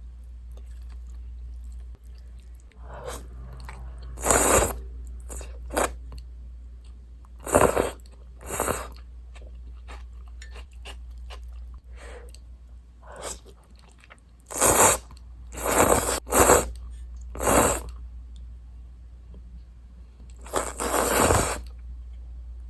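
Someone eating Sapporo Ichiban miso instant ramen close to the microphone: about eight short, loud slurps of noodles, with quieter chewing between them, over a steady low hum.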